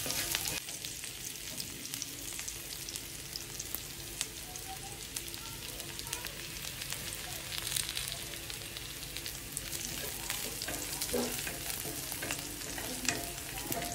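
Chopped onions sizzling as they fry on a hot black tava (flat griddle): a steady sizzle with scattered crackles, and a metal spatula scraping and stirring them.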